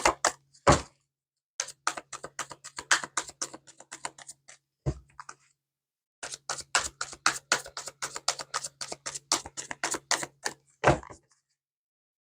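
Oracle cards being shuffled by hand: quick runs of crisp card clicks, several a second, broken by short pauses, with a few single heavier knocks of the deck.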